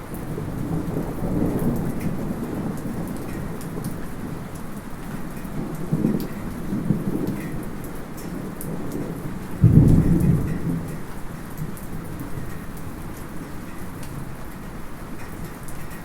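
Light steady rain with distant thunder rumbling several times: a rumble early on, another about six seconds in, and the loudest one starting suddenly about ten seconds in before fading.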